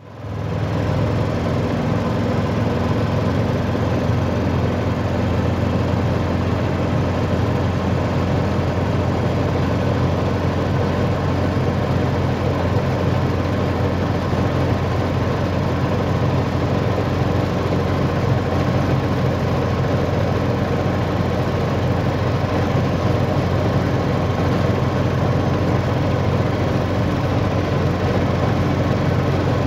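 Steady engine and tyre rumble of a car driving along a gravel road, heard from inside the cabin.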